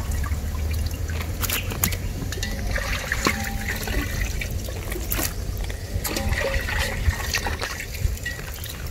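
Water sloshing and trickling as raw quail pieces are washed by hand in a metal pot, over a steady low rumble with scattered small clicks.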